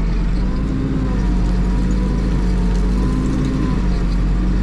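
HEPCO HLB95B backhoe loader's diesel engine running steadily under load while the backhoe digs, heard from inside the cab, with a thin steady whine over the deep engine note.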